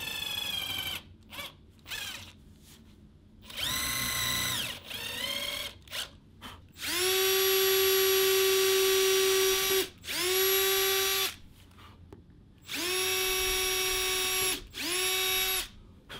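Cordless drill boring small holes in plywood: several short runs of motor whine, each rising in pitch as it spins up and falling as it stops, the longest about three seconds, with light clicks between runs.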